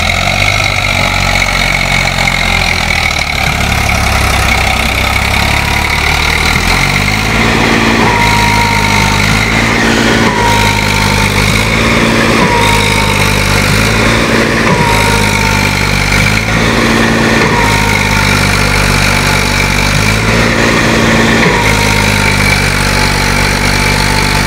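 Diesel engines of a JCB 3DX backhoe loader and a tractor running under load, as the loader pushes a soil-laden tractor trolley that is stuck in soft ground. From about a third of the way in, the engine note rises and falls in a regular cycle about every two seconds.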